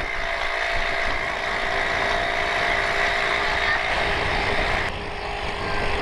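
Small outboard motor on an inflatable dinghy running steadily under way, with rushing water and wind. About five seconds in the sound changes abruptly and the highest hiss drops away.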